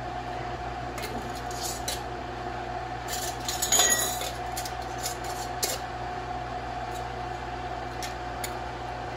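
Metal canning lids and screw bands clinking against glass mason jars as the bands are screwed on finger-tight, in scattered clicks with a louder cluster of clatter a few seconds in, over a steady appliance hum.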